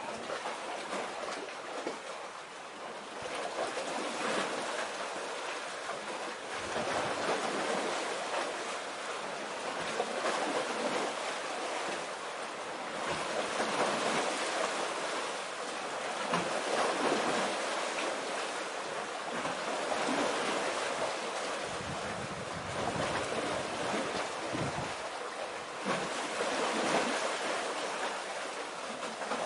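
Sea waves washing ashore: a steady hiss that swells and eases every few seconds, with no distinct engine or horn heard.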